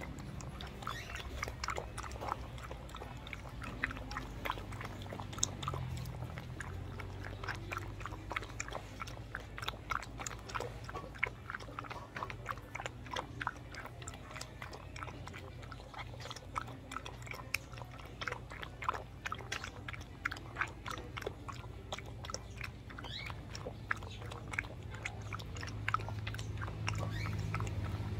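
A puppy eating from a stainless steel bowl: steady, quick chewing and smacking clicks, many a second, without a break.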